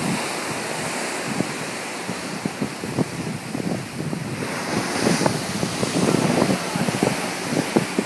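Wind buffeting the microphone in uneven low gusts over the steady rush of waves on the open sea; the hiss of the water grows louder about halfway through.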